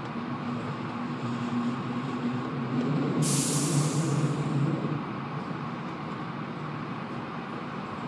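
Inside a moving passenger train: steady rumble of the wheels on the track with a low hum that swells a little in the middle. A sharp hiss cuts in about three seconds in and lasts about a second and a half.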